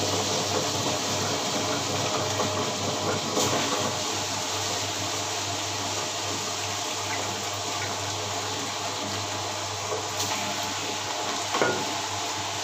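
Prestige wet grinder running with a little water in its steel drum, before the soaked dal goes in: a steady motor hum under churning, sloshing water as the stones turn. A few light knocks, once about three and a half seconds in and twice near the end.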